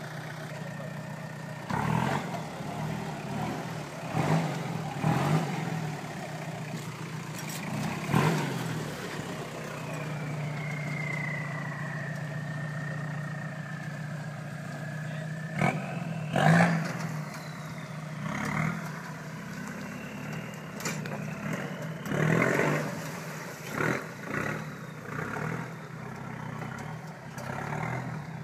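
Turbocharged Toyota Hilux's engine working hard off-road, a steady drone broken by about ten short, loud bursts of revving. In the middle a high whistle sinks slowly in pitch over several seconds.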